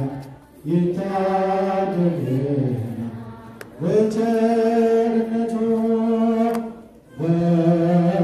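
Ethiopian Orthodox liturgical chant: sung vocal phrases made of long held notes in a slow melody. There is a breath break about half a second in, another shortly before four seconds, and another about seven seconds in, and one note is held steady for over two seconds in the middle.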